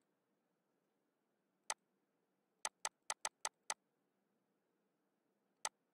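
Computer mouse clicking: a single click, a quick run of six clicks about a second later, and one more click near the end.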